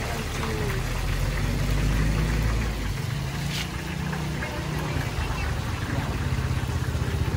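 Batter pieces deep-frying in a wide wok of hot oil, a steady sizzle, over a low steady engine-like rumble.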